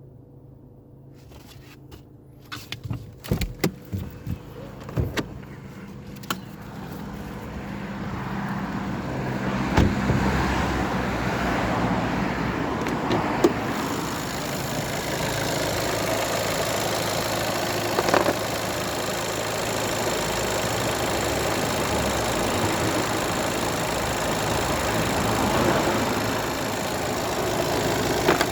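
A few clicks and knocks, then the VW Golf 7's 1.6 TDI four-cylinder diesel engine running steadily from about ten seconds in, with an occasional sharp knock. The owner suspects the knocking comes from the timing belt.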